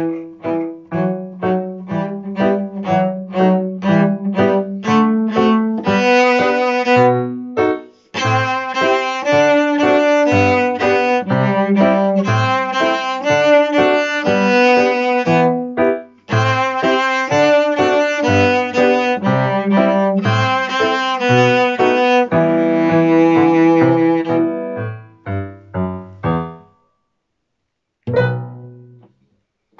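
Cello with piano accompaniment playing a march, with short detached notes in an even rhythm. The music dies away near the end, and one short final note follows after a brief pause.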